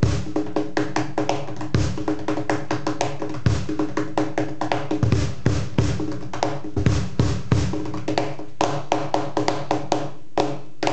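El Misti Magma bass cajón played with bare hands in the traditional way: deep bass strokes about every one and a half to two seconds, with quick slaps and taps on the front panel between them.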